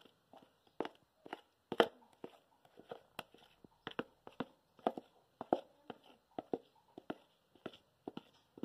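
A run of light, irregular clicks and taps, about two or three a second, from handling a plastic bowl and utensil while thick cake batter is poured from it into an aluminium tube cake pan.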